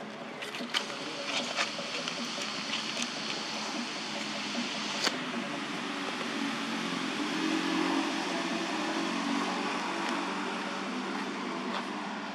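Steady rushing background noise that swells around the middle, with a few sharp clicks in the first few seconds.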